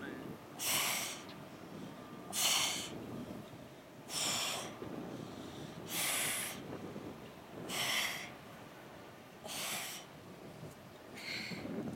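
A woman's sharp, forceful exhalations, one with each crunch as she curls up, coming evenly about every second and three-quarters, seven in all, over a steady low rumble.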